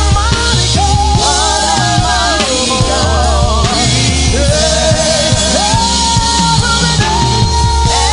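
Loud live gospel praise music: a voice singing melodic lines with vibrato and long held notes, over a band with a heavy, pulsing bass.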